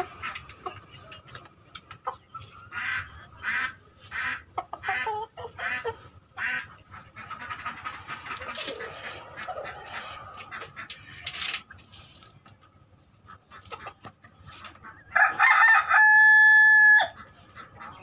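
Chickens clucking in a run of short repeated calls, then a loud rooster crow about fifteen seconds in that ends on one long held note.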